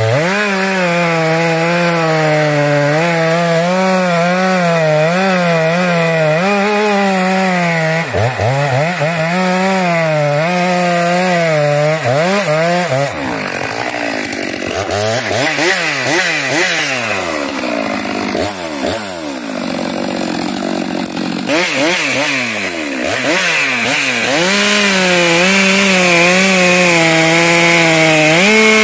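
Stihl MS 462 two-stroke chainsaw running and cutting a log, its engine pitch wavering under load. Through the middle the engine speed sweeps down and up several times, then it holds a steady, slightly higher pitch near the end.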